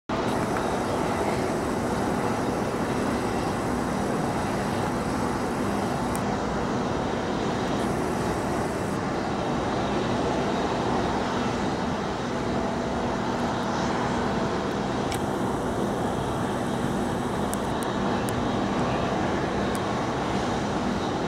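Jet aircraft engine noise at an airport: a steady rush with a low steady hum underneath.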